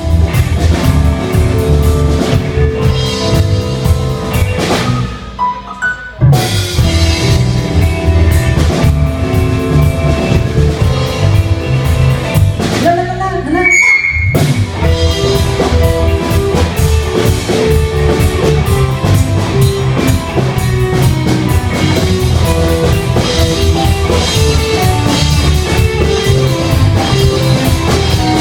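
Rock band playing live on drum kit, electric guitar and bass guitar. The band breaks off briefly twice, about five seconds in and again around thirteen seconds in, with a short high gliding tone in the second break before the full band comes back in.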